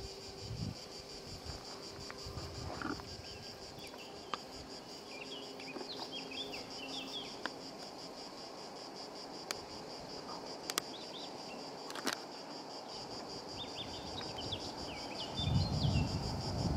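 A steady, pulsing chorus of insects buzzing in the summer heat, with a bird chirping in short bursts now and then. Near the end, gusts of wind rumble on the microphone.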